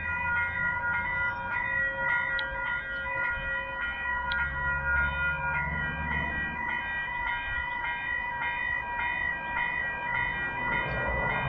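Level crossing warning bell ringing, a bright metallic ding repeating steadily, over a low rumble. It is the crossing alarm signalling that a train is approaching.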